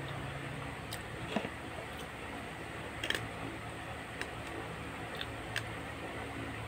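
A fork clicking and tapping against a styrofoam food container, about half a dozen scattered light clicks over a steady background hum.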